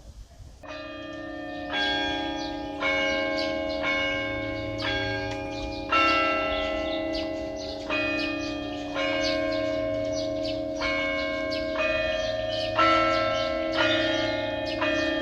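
Church bells ringing, struck one after another about once a second, with the pitch changing from strike to strike and each note ringing on under the next. The ringing begins just under a second in.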